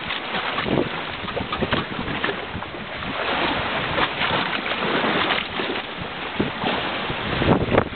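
Sea water splashing and sloshing against a reed boat's hull, with wind buffeting the microphone.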